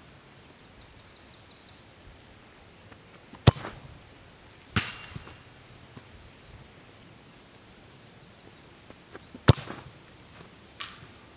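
A soccer ball kicked hard in a free kick, and about a second later a clang with a short metallic ring as the ball strikes the metal goal frame. Near the end comes a second hard kick, then a softer thud a second later.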